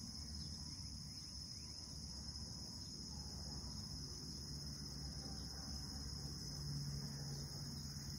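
Steady, high-pitched chorus of insects (crickets or cicadas) in the grass, over a low rumble; a low hum swells briefly about two-thirds of the way in.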